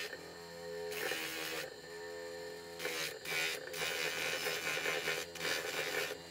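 Bench motor running a sanding disc with a steady hum, while a small wooden carving is pressed against the disc several times, each contact giving a stretch of sanding hiss.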